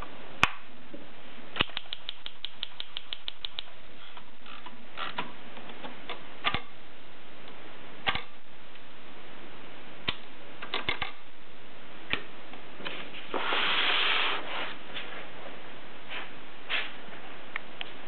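Mechanism of a 1937 Erika model 5 portable typewriter being worked by hand: a quick run of about ten ratcheting ticks near the start, scattered single clicks, and a longer rasping slide lasting about a second around two-thirds of the way through.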